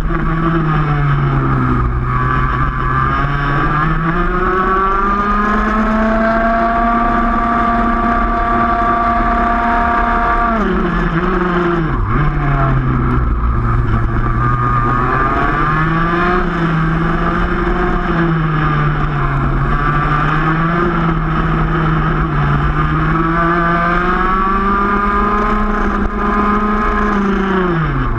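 Racing kart engine at full race pace, its note climbing out of each corner and dropping away under braking, several times over, with a long steep fall about ten seconds in.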